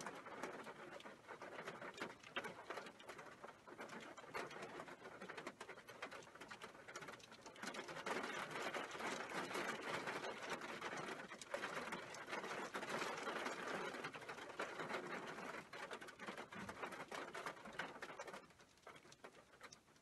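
Heavy rain with hail: a dense patter of many small, sharp clicks, growing louder about eight seconds in and dying away near the end.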